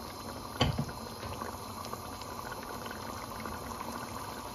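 Chicken and chickpea curry boiling hard in a metal pot on a high gas flame, its bubbles popping steadily in many small pops. A single sharp knock comes about half a second in.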